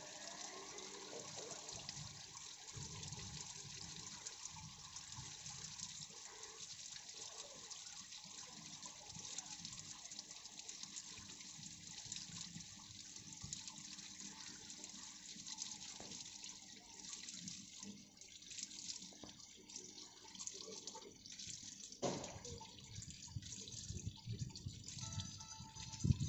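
Oil pouring from a hose into the open on-load tap changer compartment of a power transformer, a steady splash and swirl of liquid as the compartment is flushed and refilled. A faint steady hum runs underneath.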